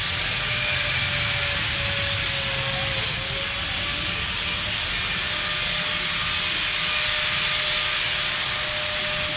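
Steady whir of an electric motor running, with a constant hum and an even hiss over a low rumble.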